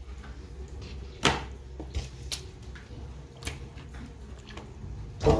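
Scattered knocks and clunks as seasoned raw pork is handled and moved from a bowl into a container. There is a sharper knock about a second in and a louder one with a brief ring near the end.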